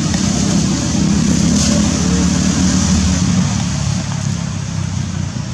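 Low rumble of a motor vehicle going past, swelling for the first few seconds and then easing off.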